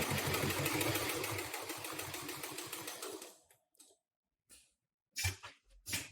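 Extra heavy-duty industrial sewing machine driven by an HM-750T servo motor at about 2000 RPM, stitching through thick high-density webbing with a fast, even rhythm and running without difficulty. It stops about three seconds in, and two short knocks follow near the end.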